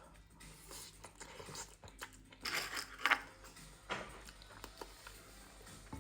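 A person eating Buldak instant noodles: chewing and other mouth sounds, with a few louder rustling bursts around two and a half to three seconds in and again about four seconds in.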